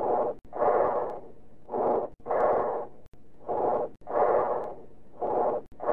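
Tracheal breath sounds recorded over the trachea: high-pitched blowing breaths, a short inspiration followed by a longer expiration with a gap between them, repeating about three times. These are the normal features of bronchial-type breathing.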